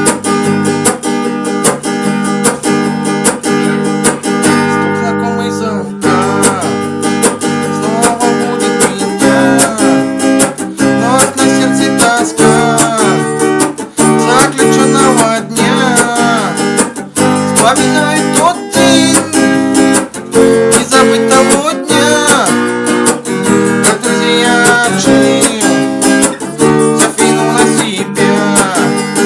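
Instrumental introduction on strummed acoustic guitar, with a bending melody line played over the chords from about six seconds in.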